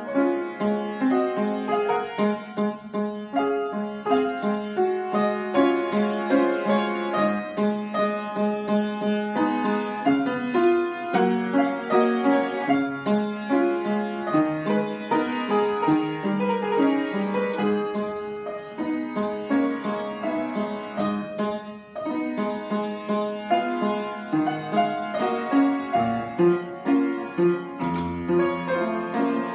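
Upright piano being played, a continuous run of notes with a short break about three quarters of the way through.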